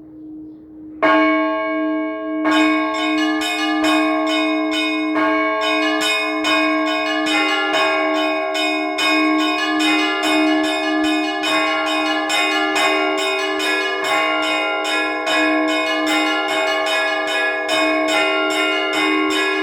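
Orthodox church bells ringing a trezvon. At first only a bell's ring lingers. About a second in, a bell is struck, and from about two and a half seconds in the full peal begins, with small bells chiming rapidly over the larger bells.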